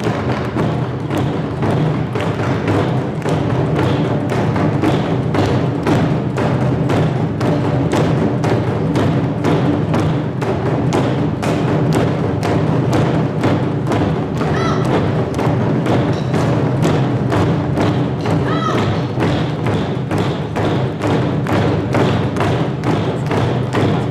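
Music with a steady, fast thumping percussion beat over sustained low tones.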